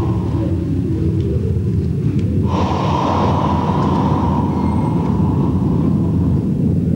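Steady, loud, low rumbling noise. A brighter, hissier layer cuts in about two and a half seconds in and drops out again near the end.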